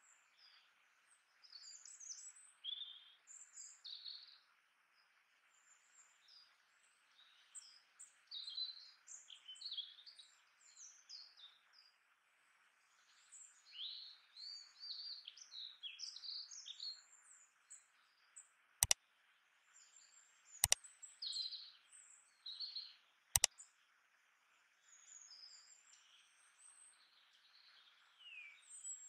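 Small birds chirping and twittering in many quick, sweeping calls over a steady hiss, with three sharp clicks about two-thirds of the way through.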